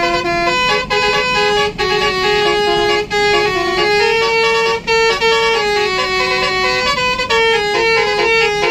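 Basuri telolet multi-tone air horn on a bus playing a melody: several horn tones sounding together, stepping from pitch to pitch every fraction of a second, with a low rumble underneath.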